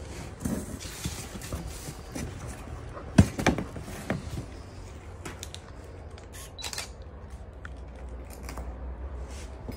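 Handling noise from a handheld camera: rustles and scattered light knocks over a low steady rumble. The loudest knock comes about three seconds in, followed by a few smaller ones.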